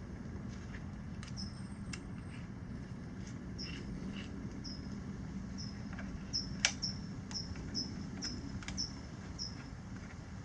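Light clicks and knocks of a handlebar part being fitted back on by hand, over a steady low hum. Short high chirps repeat every half second or so, most often in the second half.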